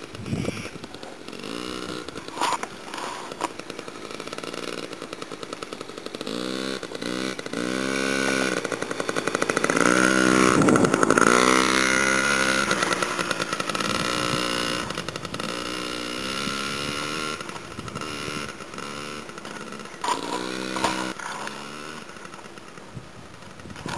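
Small child's dirt bike engine running with a high, buzzy note, revving up and down over and over as the bike rides around. It is loudest about halfway through, when the bike passes close by, then fades as it rides away.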